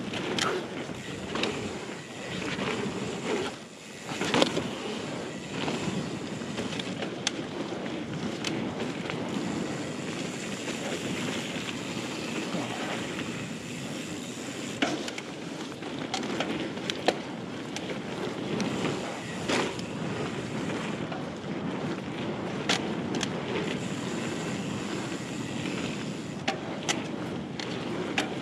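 Ibis Ripmo AF full-suspension mountain bike riding fast down a dirt trail: steady tyre rumble with wind buffeting the chest-mounted camera's microphone, broken by scattered sharp clicks and knocks from the bike over bumps, the loudest about four seconds in.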